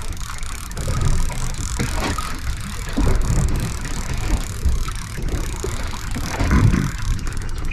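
Uneven low rumble of wind and sea around a small fishing boat, with no clear tones or rhythm.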